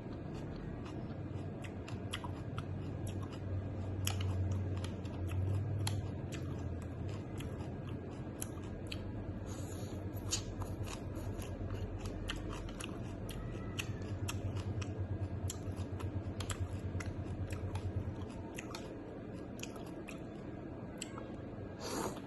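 A person chewing food close to the microphone, with many sharp crunchy clicks and a low pulsing rumble from the chewing.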